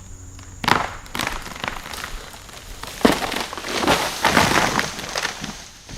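Dead pine tree cracking and falling: sharp snaps of breaking wood starting just under a second in, a heavy crash about three seconds in, then a dense run of splintering and crashing limbs.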